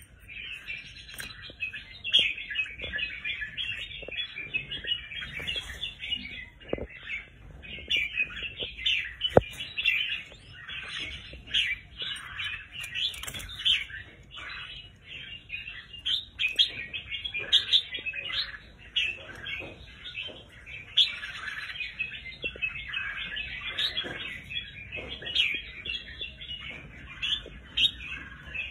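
A group of white-mutation red-whiskered bulbuls chirping and calling nonstop, many short calls overlapping.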